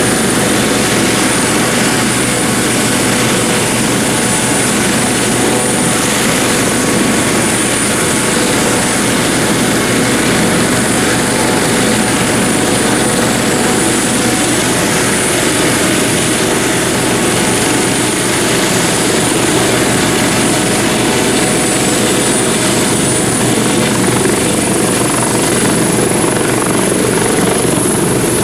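Eurocopter AS365 Dauphin helicopter running on the ground with its main rotor turning: steady rotor and turbine noise with a high turbine whine. Near the end the whine rises in pitch as power comes up for lift-off.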